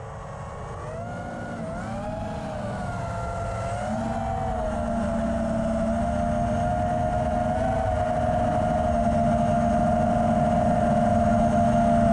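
A motor running with a steady hum whose pitch wavers up and down for the first few seconds and then holds, growing steadily louder.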